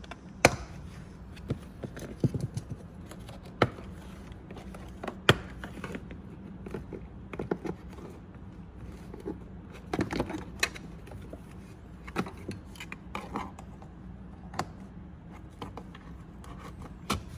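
Plastic car interior trim panel being pried off and handled: scattered sharp clicks and knocks with some rubbing and scraping, a cluster of louder knocks about ten seconds in.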